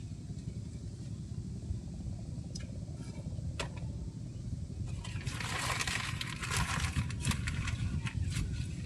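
Water splashing for about three seconds, starting a little over halfway through, over a steady low rumble with a few scattered clicks.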